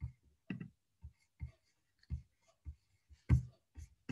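Irregular light clicks and taps of a computer mouse and keyboard, about ten in four seconds, the loudest a little past three seconds in.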